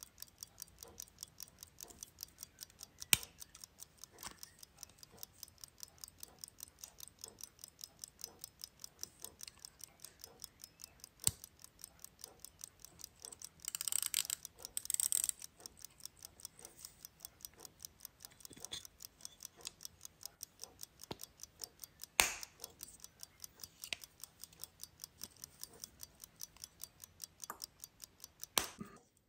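Pocket watch running close up, its movement ticking rapidly and evenly, several ticks a second. A few sharp clicks from handling stand out over the ticking, and a short rustling scrape comes about halfway through.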